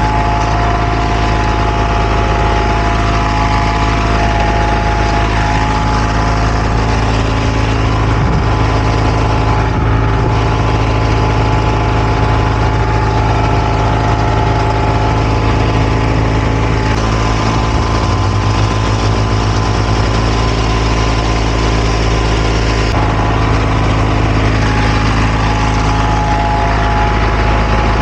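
Heavy diesel engine of asphalt paving equipment running loud and steady at constant speed, with a deep hum and several steady tones above it.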